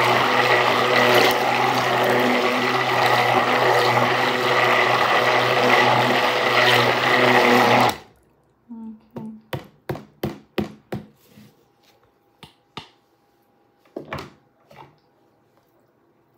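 Electric stick blender running steadily in a jug of soap batter, then switched off suddenly about eight seconds in. A quick run of light knocks and clicks follows, with a few more spaced out near the end.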